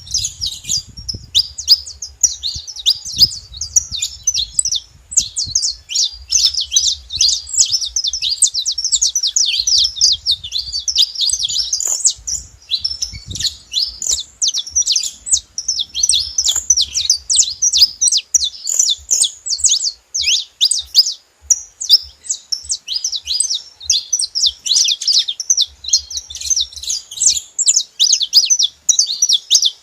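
A group of saffron finches chirping together, a dense, unbroken chatter of quick high notes from several birds at once.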